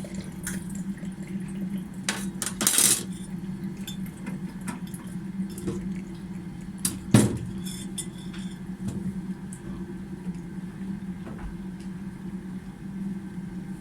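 A utensil clinking and scraping against a bowl as eggs and cooking oil are mixed, with a louder clatter about three seconds in and a sharp knock about seven seconds in, over a steady low hum.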